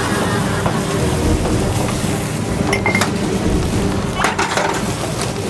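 Kitchen clatter: dishes, pans and utensils clinking over a steady hiss, with a few sharp clinks about three seconds in and a burst of clatter near the end.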